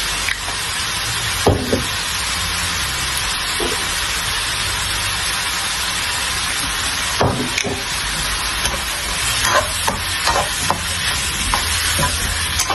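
Onions, scallions and bell pepper sizzling steadily as they stir-fry in a wok. A metal spatula knocks and scrapes against the pan a couple of times early on and more often in the last few seconds.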